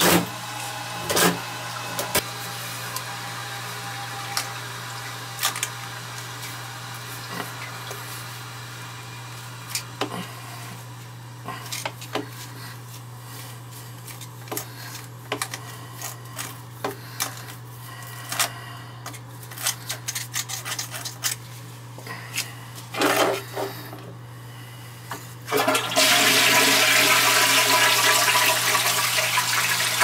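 Floor-mounted toilet flushing near the end: a sudden, loud rush of water that continues, heard close to the bowl's base as a test for a leak at the wax seal. Before it, a steady low hum with scattered light taps and rubbing as a gloved hand feels the floor around the base.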